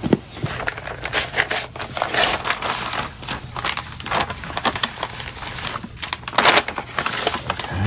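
Paper and cardboard packaging being handled at a table: irregular rustling and crinkling with short scrapes and knocks, loudest about six and a half seconds in.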